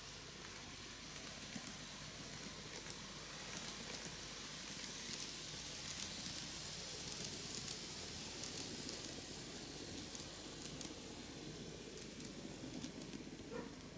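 Micro Ace N-gauge Seibu 4000 series model train running round a curve of TOMIX superelevated track. It gives a faint, steady hiss from its motor and wheels, with scattered small clicks.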